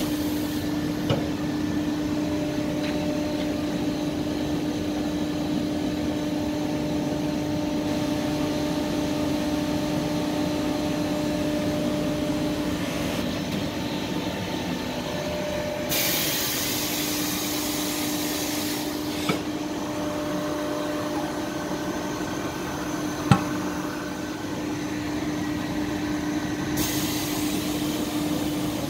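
Francis Shaw K1 intermix mixer running empty in its automatic mixing cycle, a steady machine hum with a constant tone. Twice, about halfway through and again near the end, a hiss lasting a few seconds rises over it, and there are a few sharp clicks.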